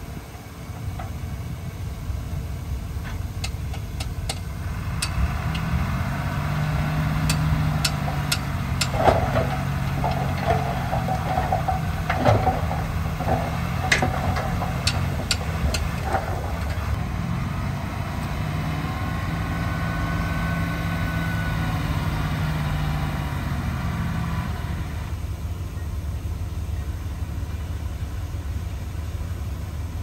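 Diesel engine of heavy earthmoving machinery working, its note rising and falling as it comes under load from about five seconds in until about twenty-five seconds in, then settling back to a lower drone. A run of sharp metallic clanks and knocks comes through the first half.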